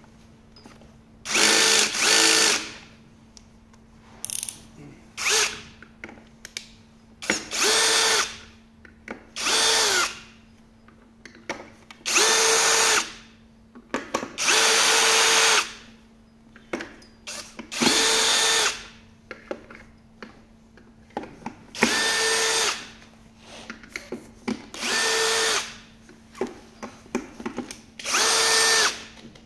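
Cordless drill-driver backing screws out of a hoverboard's plastic shell, its motor whining at a steady pitch in about ten short runs of around a second each, with small clicks and handling noise between runs.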